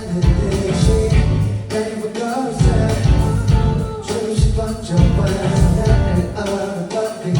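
Pop song played live through a concert sound system, a male voice singing over a backing track with a heavy, pulsing bass beat that drops out briefly twice.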